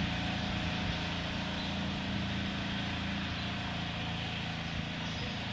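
John Deere 300 garden tractor with a 10 hp diesel engine running steadily as it drives away, growing slightly fainter.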